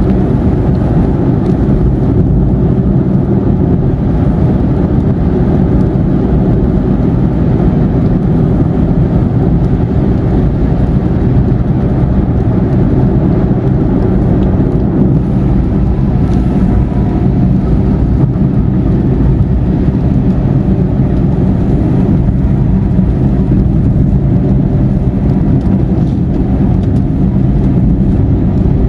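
Steady road and engine noise of a car driving on a highway, heard from inside the cabin as an even low rumble.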